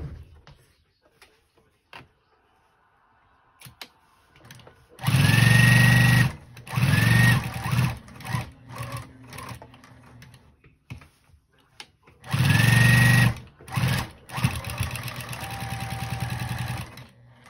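Electric sewing machine stitching through a layered denim quilt square in short runs, its motor whining up in pitch as each run starts. It is quiet for the first few seconds, and there is a longer, quieter, steadier run near the end.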